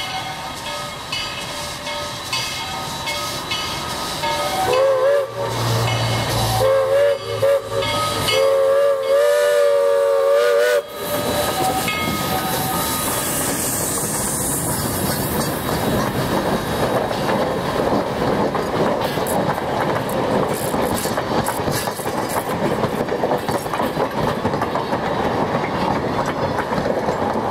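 Skookum #7, a 2-4-4-2 articulated steam locomotive, chuffing as it approaches, then sounding its multi-tone steam whistle in several blasts, the last one long, about five seconds in for the crossing. It then passes close by with loud hissing steam and wheels clattering over the rail joints.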